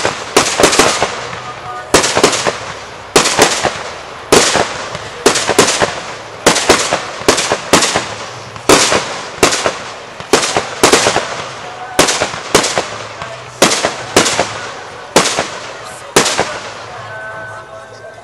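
Aerial fireworks bursting in the sky: a rapid series of sharp bangs, about two a second, each with a short echoing tail. The bangs stop about two seconds before the end.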